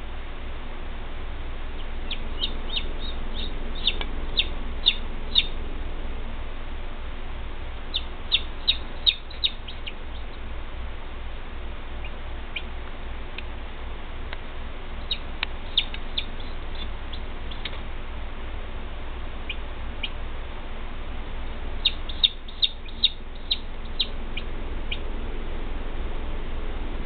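Chicken chicks peeping in high-pitched runs of quick cheeps, four runs a few seconds apart, over a steady low hum.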